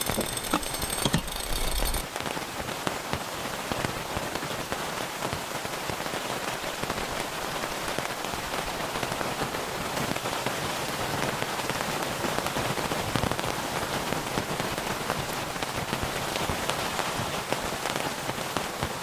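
Steady rain falling, a dense patter of many small drops. The sound changes character about two seconds in, then holds steady.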